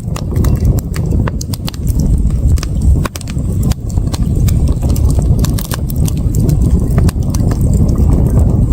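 Wood campfire crackling: many sharp, irregular pops and snaps over a steady low rumble.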